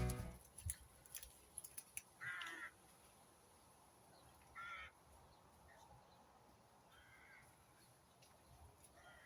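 A bird calling outdoors: two short calls a couple of seconds apart, then fainter calls later on, over low background hiss.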